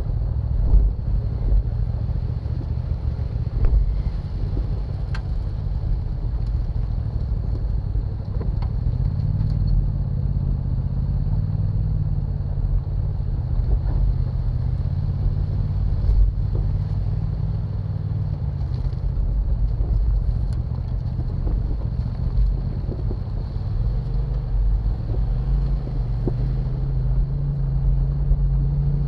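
Jeep Wrangler's engine running at crawling speed on a rocky, sandy trail: a steady low rumble whose engine note rises and falls as the throttle changes, about ten seconds in and again near the end, with scattered light knocks and clicks from the tyres and suspension working over the ground.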